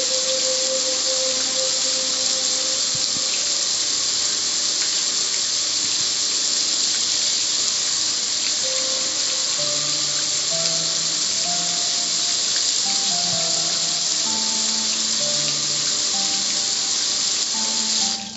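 Water spraying from a hand-held nozzle onto a gas grill's metal lid and control panel: a steady hiss that cuts off near the end.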